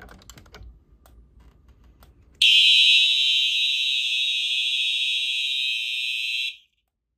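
Fire alarm horns sounding one steady continuous tone as a smoke detector under test trips the panel into alarm. The horns come on suddenly about two and a half seconds in, after faint handling noise at the detector, and cut off abruptly near the end.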